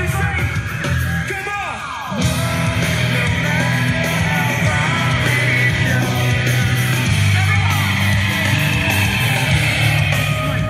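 Loud rock music with a singing voice over a heavy bass line. Just before two seconds in, a falling sweep, then the music gets louder.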